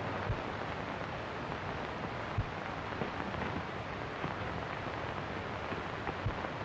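Steady hiss and crackle of an old optical film soundtrack, with a few soft low pops.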